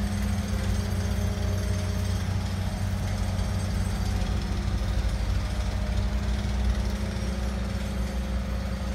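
A motor or engine running steadily nearby: a low, even drone with a constant hum that holds without a break.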